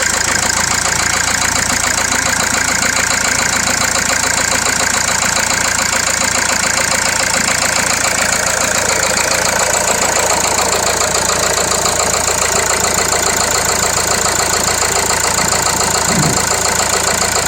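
Renault Laguna 2.0 dCi (M9R) four-cylinder diesel engine idling steadily with a metallic clatter, which the owner puts down to the hydraulic tappets.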